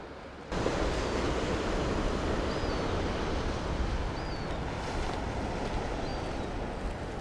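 Wind buffeting the microphone over the wash of surf on a seafront: a steady, low-heavy rumble and hiss that starts suddenly about half a second in. A faint high chirp recurs every second and a half or so.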